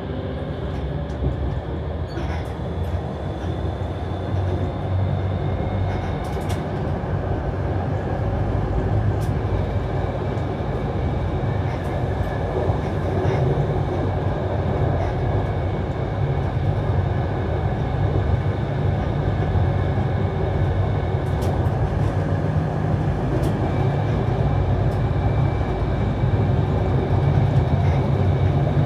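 Vario LF2R.E low-floor tram running on rails: a steady low rumble of wheels on track that grows slowly louder, with an electric motor whine that rises in pitch near the start and then holds, and occasional sharp clicks.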